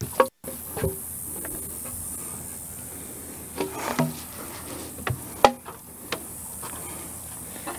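Heavy wooden timber knocking and bumping against the frame as a knee brace is handled and set in place: a string of irregular knocks, the loudest about five and a half seconds in. A steady high hiss runs underneath.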